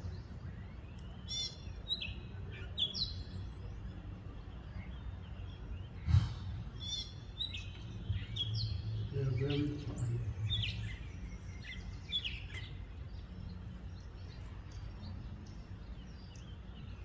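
Small birds chirping and singing in short phrases over a steady low outdoor rumble. A single sharp knock comes about six seconds in.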